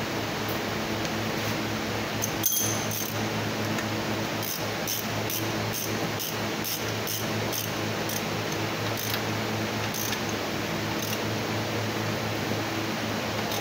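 Hand ratchet with a socket extension clicking as a bolt on an engine is turned: a run of sharp ticks about four a second, then a few slower ones, with one louder metallic clack earlier on. A steady fan hum runs underneath.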